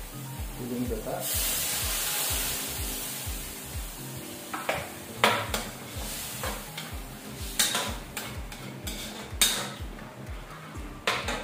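Coconut milk poured into a hot metal wok of sautéed ingredients, hissing for a few seconds. Then a metal ladle stirs and scrapes around the wok, with several sharp clinks against its side.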